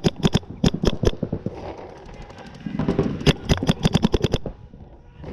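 Paintball markers firing rapid strings of shots: a fast close burst of about ten shots a second in the first second, fainter shots from across the field, then another close burst of about a dozen shots between about three and four and a half seconds in.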